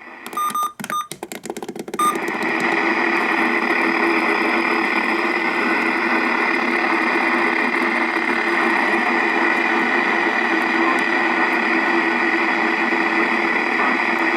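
Weather-band radio (a RunningSnail emergency radio) playing through its small speaker. In the first two seconds there are a few short beeps and choppy bursts of static. After that it settles into steady loud static hiss, with a weak NOAA weather station barely coming through.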